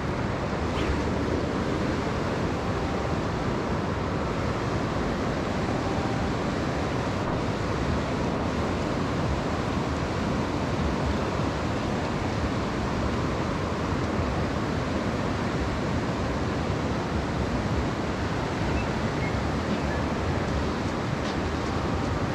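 Steady rushing of river water, an even wash of noise with no breaks.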